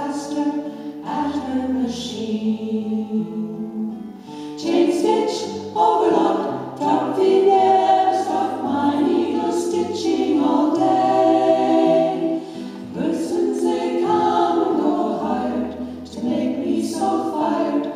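Women's vocal group singing a song in close harmony, with an acoustic guitar and held low notes underneath.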